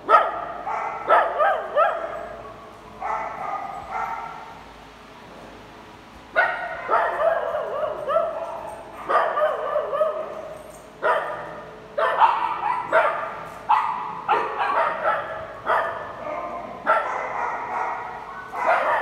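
Several small dogs barking and yipping as they play-fight, in repeated bursts with a lull about four to six seconds in.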